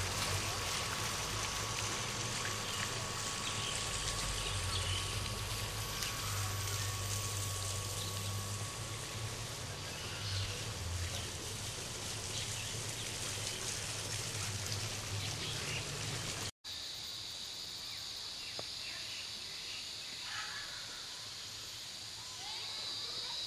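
Garden ambience: a steady rush of running water from a fountain with a low rumble of wind, then after an abrupt cut a quieter background with a steady high buzz and a few bird chirps.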